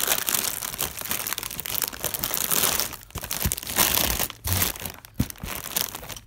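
Crinkling and rustling of plastic Lego parts bags and paper as instruction booklets are pushed into a cardboard box packed full of bags. It is an irregular, crackly handling noise with small clicks, busiest in the middle.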